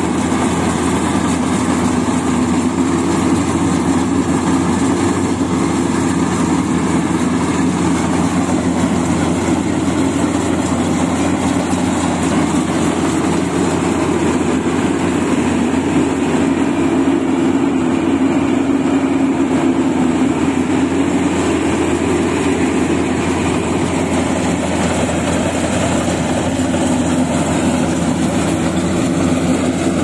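Engine of a Maxxi Bimo 102 rice combine harvester running steadily, without a break.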